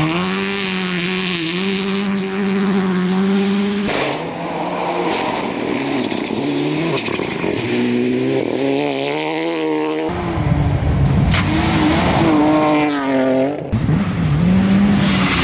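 Rally car engines at full throttle, revving up and dropping through gear changes, with several shots spliced together so that the sound changes abruptly about four seconds in and again about ten seconds in.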